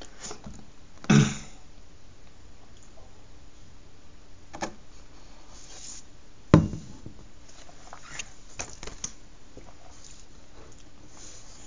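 A man drinking from a glass in a small room: a short sniff or breath about a second in, small mouth and sip sounds, and one sharp knock about six and a half seconds in.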